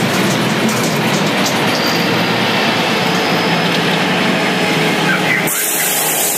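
A truck driving past close by: its engine gives a steady low drone under loud road noise. Near the end the sound cuts abruptly to a thinner, steady hiss.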